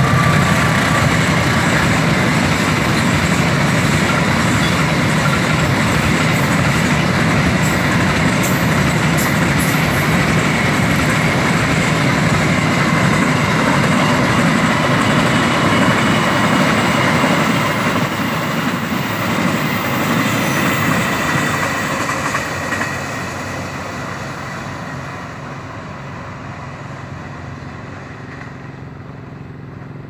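Long freight train's wagons rolling past on the rails, a steady rumble of wheels and couplings that fades out over the last ten seconds or so as the end of the train goes by.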